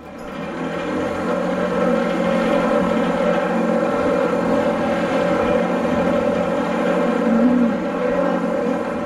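An engine running at a steady speed, a drone at an unchanging pitch that swells up over the first couple of seconds.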